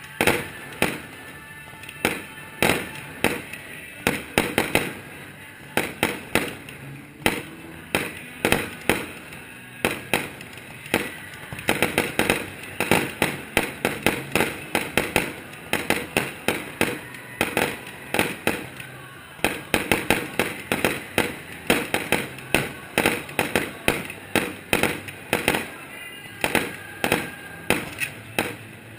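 Aerial firework shells bursting in a rapid string of sharp bangs, about two a second, coming faster in clusters.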